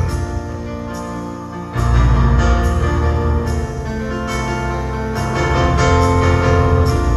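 Live rock band led by piano, playing at full volume. The bass and drums drop back briefly, then come in strongly again just under two seconds in.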